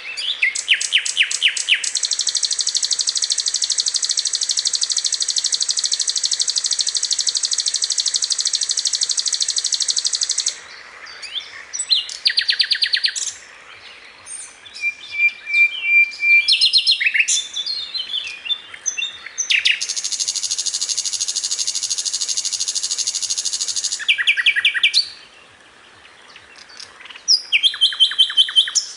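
Recorded song of a sikatan londo, a flycatcher: long, very rapid high trills held for several seconds at a time, twice, with short fast runs of notes and brief pauses between them.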